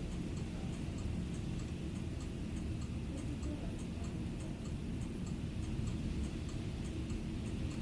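Heavy rain as a steady, deep rushing noise, with a quick run of faint high ticks, about three or four a second.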